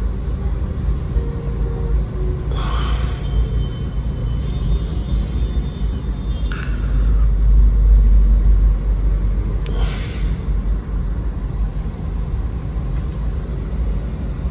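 Car cabin road noise while driving: a steady low rumble that swells for a few seconds in the middle, with brief hissing noises about two and a half, six and a half and ten seconds in.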